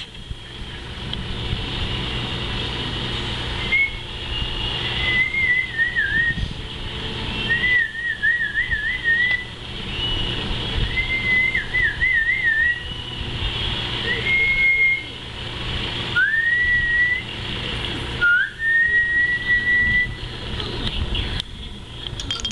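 A series of about seven short whistled phrases, pure and high. The middle ones waver up and down in trills, and the last ones slide up into a held note. A steady low hum runs underneath.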